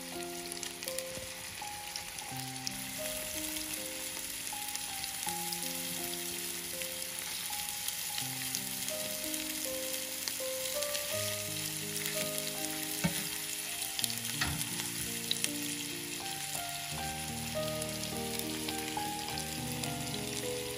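Meatballs frying in shallow oil in a pan, with a steady sizzle. Soft background music of slow, held notes plays over it.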